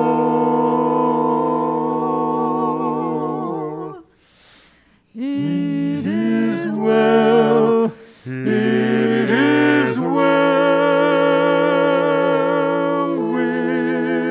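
Small mixed vocal ensemble singing a cappella in harmony. A long held chord breaks off about four seconds in. A new phrase then rises into further sustained chords with vibrato.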